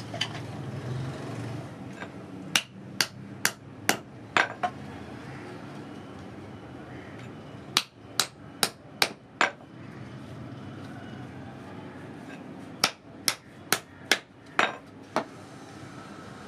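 Hammer striking nails into wood: three runs of five or six sharp blows, about two a second, with pauses of a few seconds between them.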